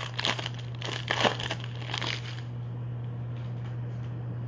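Plastic trading-card pack wrapper crinkling as it is pulled open by hand for about two and a half seconds, over a steady low hum.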